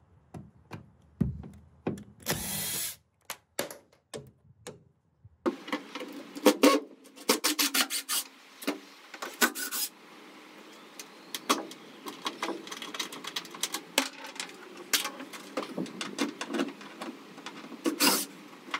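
Makita cordless impact driver with a socket undoing the bolts of a van's steel bulkhead, running in short bursts, with clicks and knocks of metal between them. The main bursts come about two seconds in and again near the end.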